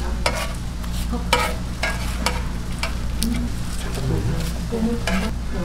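Fish sizzling as it grills, with irregular short scrapes and knocks of utensils over a steady low hum.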